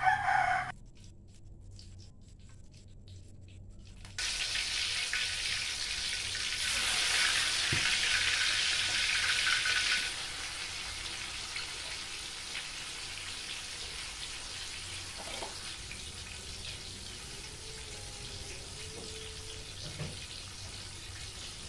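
Tofu slices sizzling in hot oil in a frying pan. The sizzle starts about four seconds in, is loudest while the pieces are being dropped in, then settles to a steady, quieter sizzle.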